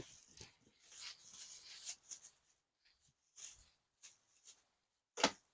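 Handling noise from unpacking a pressure washer's parts: irregular rustling and rubbing of packaging and plastic, with one sharp knock near the end.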